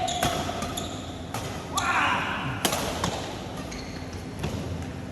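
Badminton rackets striking a shuttlecock in a rally: a few sharp, crisp hits spaced roughly half a second to a second apart, echoing in a large hall.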